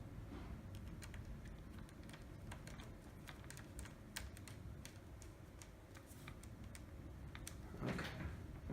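Small, irregular clicks and ticks of a screwdriver driving screws into a laptop's plastic casing, several a second, with the plastic parts being handled.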